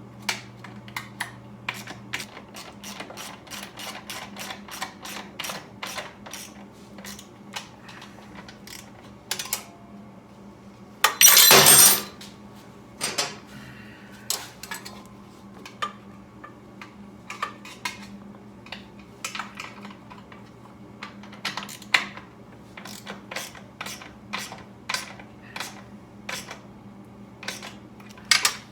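Small metal hand-tool clicks and clinks, irregular and continual, as nuts are turned down on a voltage-regulator mounting bracket. About eleven seconds in comes a single loud rasping, ringing metal burst lasting about a second, over a low steady hum.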